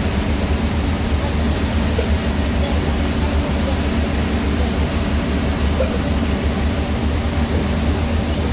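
Bus engine and tyre noise on a wet road heard from inside the moving bus's cabin: a steady low rumble with an even hiss over it.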